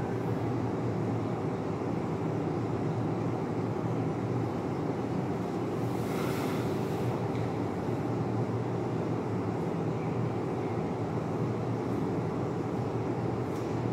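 Steady background noise with a low hum, and a brief hiss about six seconds in.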